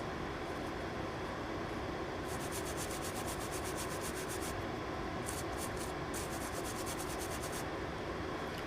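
Brush scrubbing quickly back and forth over a circuit board to clear away uncured UV solder mask. It comes in two spells of fast, scratchy strokes, about nine a second, starting a little after two seconds in.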